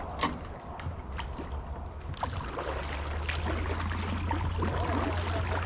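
Kayak paddling on calm water: paddle blades dipping and splashing, and water dripping and gurgling off the blades. A steady low rumble underneath grows louder about halfway through.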